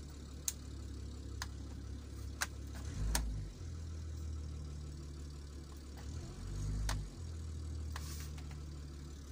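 Boat's inboard engine idling steadily with a low hum, its note shifting briefly about three seconds in and again around seven seconds, with a few sharp clicks over it.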